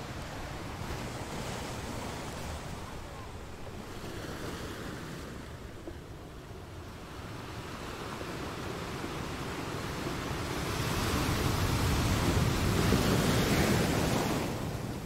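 Rushing wind-and-surf noise, with wind buffeting the microphone. It grows louder about ten seconds in and eases off just before the end.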